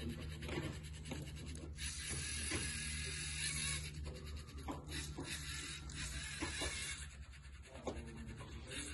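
Lego Mindstorms EV3 robot's motors and plastic gears whirring as it drives along the track, over a steady low hum, with a few light clicks.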